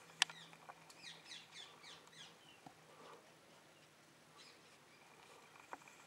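A bird calling a quick run of about six downward-sliding chirps, with a few sharp clicks before and after.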